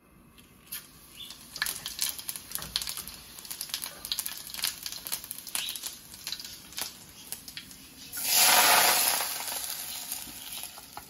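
Fenugreek seeds crackling in hot mustard oil in a cast-iron pan: a run of quick, sharp pops. About eight seconds in, the hot oil is poured over chopped grilled pork and tomatoes in a bowl and gives a loud sizzle that fades over the following seconds.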